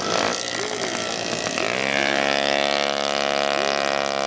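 Single-speed moped engine revving up sharply about two seconds in, then running steadily at high revs.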